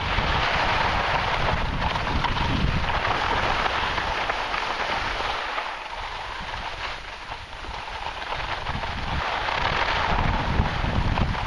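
Wind buffeting the microphone while moving across snow: a steady rushing hiss with low rumbling gusts. It eases off about six seconds in and builds again near the end.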